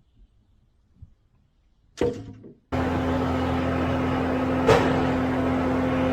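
A sharp knock about two seconds in, then a vehicle engine running steadily with an even low hum that cuts in abruptly, with a single click partway through.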